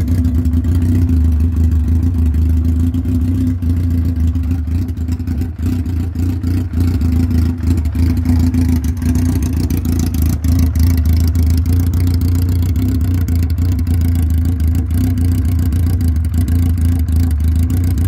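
1980 Honda CB750's air-cooled inline-four engine idling steadily through an open, heat-wrapped 4-into-1 header with no tip fitted.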